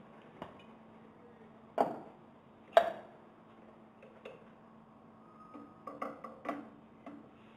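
Metal knocks and clicks as a mechanical seal is pushed onto a pump shaft with a metal fitting tube. There are two sharp knocks about two and three seconds in, then a cluster of lighter clicks near the end, over a faint steady hum.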